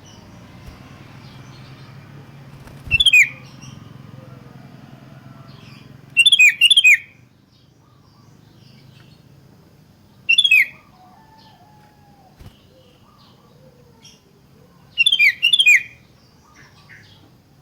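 Sooty-headed bulbul (kutilang) calling: four short, loud phrases of a few quick, falling whistled notes, spaced a few seconds apart, the second and last phrases doubled.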